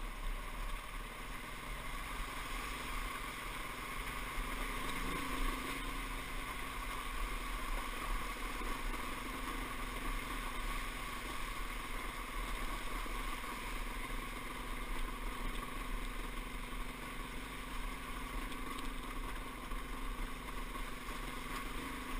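Dirt bike engine running at steady, low revs as the bike is ridden slowly over loose rock and through a shallow creek.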